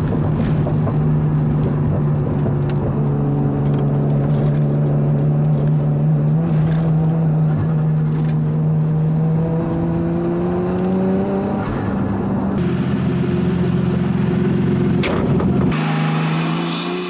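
High-flow turbocharged RB25DET straight-six engine with a straight-pipe exhaust, running at a steady engine speed while the car drives, its pitch slowly rising about two-thirds of the way through. The sound changes abruptly twice near the end.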